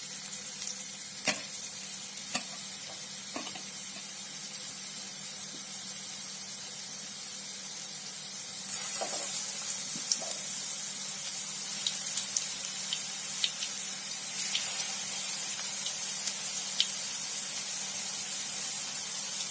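Hot oil sizzling in a frying pan as stuffed boiled-plantain unnakkaya are laid in. The sizzle grows louder about nine seconds in and again near fifteen seconds, with a few light clicks in the first few seconds.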